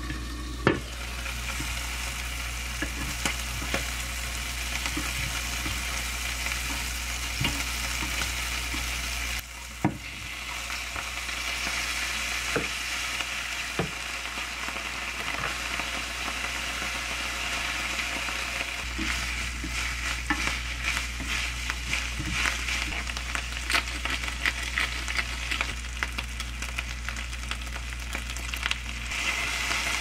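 Shrimp, garlic and tofu noodles sizzling in a nonstick frying pan, with clicks and scrapes of wooden chopsticks stirring against the pan, more frequent in the second half. A sharp knock sounds about a second in.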